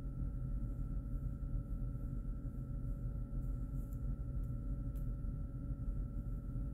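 Steady low room hum with two faint steady tones above it, and a couple of faint ticks about four and five seconds in.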